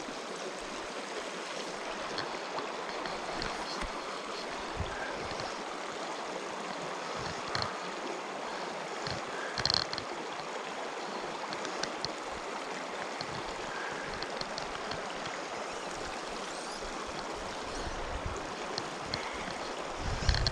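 A small, shallow mountain creek running steadily over cobbles. Now and then come short high squeaks and clicks from a loosely secured GoPro housing, the most prominent about ten seconds in.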